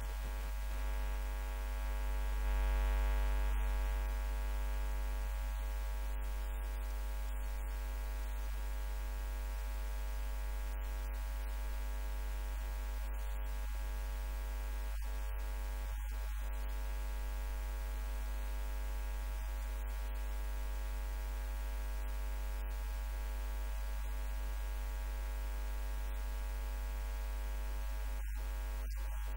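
Steady electrical mains hum with a buzzy ladder of overtones, swelling slightly about three seconds in; no speech over it.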